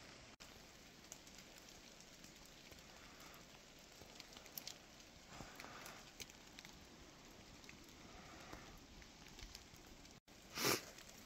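Quiet woodland ambience: a faint steady hiss with a few scattered light ticks, and a short rustle near the end.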